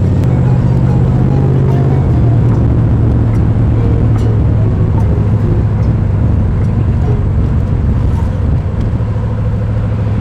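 A car engine running with a steady, loud low rumble, its pitch dropping slightly about two seconds in.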